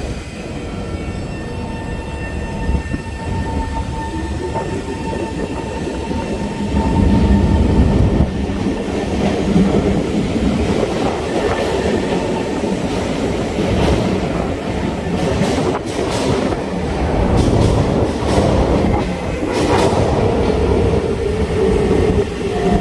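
SMRT C151 metro train running, heard from inside the car: rumble of wheels on rail with clicks over rail joints, some wheel squeal, and a whining drive tone. The noise grows louder about seven seconds in.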